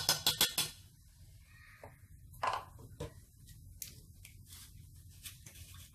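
A metal teaspoon tapping quickly against a stainless-steel mixing bowl, about six sharp taps in under a second. After that come a few lighter knocks and clatters of kitchen utensils and containers being handled.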